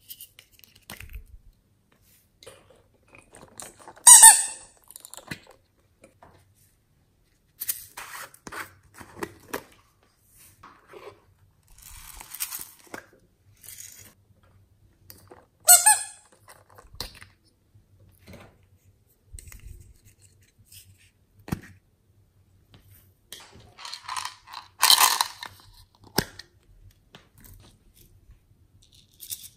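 Small plastic toy containers being handled and opened with the fingers: scattered clicks and rubbing, and two short, loud squeaks that fall in pitch, about four and sixteen seconds in.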